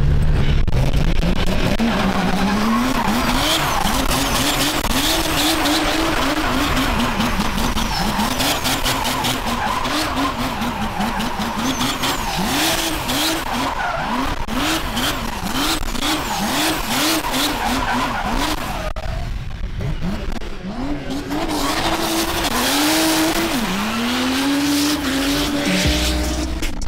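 A drift car's engine revving in quick surges over and over as its tyres skid and squeal. The revs drop away briefly about two-thirds through, then pick up again.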